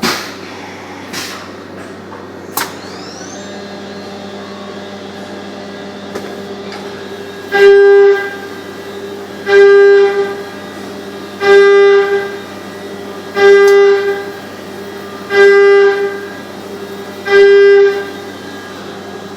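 Electronic warning buzzer in a CNC machining cell sounding six loud beeps, each under a second long and about two seconds apart, over a steady machine hum. A few sharp clicks come in the first seconds.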